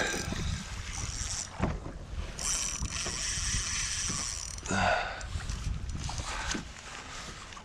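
Spinning reel working against a hooked snapper on light gear, its drag and gears whirring in stretches, the longest lasting about two seconds; a brief knock comes a little past halfway.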